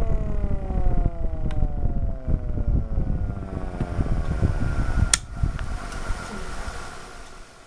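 Homemade wooden air raid siren winding down: its wail falls steadily in pitch and fades away, over a low rumble. There is a sharp click about five seconds in.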